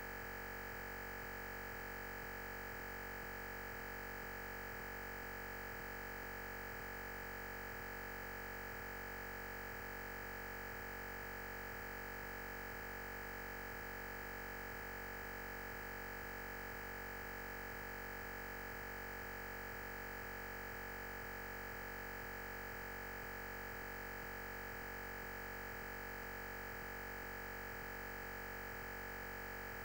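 Steady electronic hiss with a high, unchanging whine and no other events: a constant noise on the recording in place of the lecture audio.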